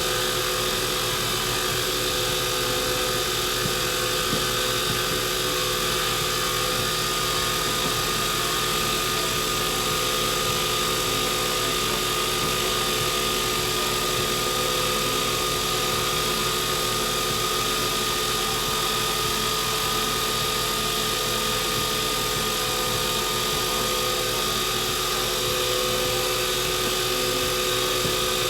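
Wood lathe running at a steady speed, its motor giving a steady whine, while boiled linseed oil is applied to the spinning pen blank.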